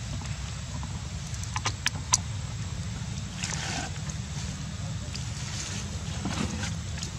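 Steady low wind rumble on the microphone, with a few sharp clicks about two seconds in and a brief rustle near the middle.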